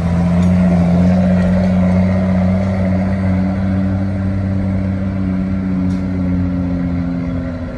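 Heavy diesel engine running steadily under load, a deep even drone with a fainter tone that slowly falls in pitch over the last few seconds.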